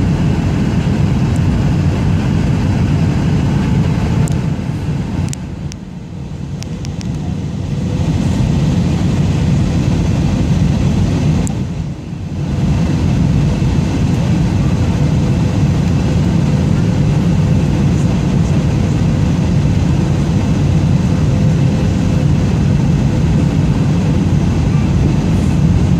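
Jet airliner cabin noise heard from a window seat over the wing: the engines and airflow making a steady low rumble on the approach to landing. The level dips briefly twice, about six seconds in and again about twelve seconds in.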